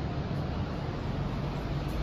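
Steady low rumble with an even hiss over it, with no distinct event standing out.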